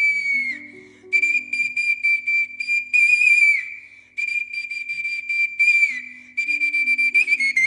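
Romanian pan flute (nai) playing a high melody: a long held note that fades off, then phrases of quick repeated notes with short gaps between them, over soft sustained piano notes.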